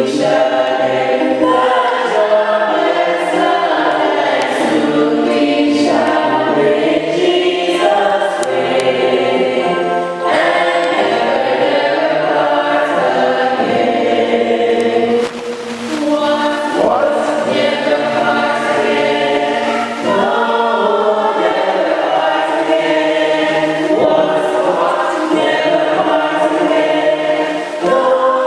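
A choir singing, held phrases with short breaks about ten and fifteen seconds in.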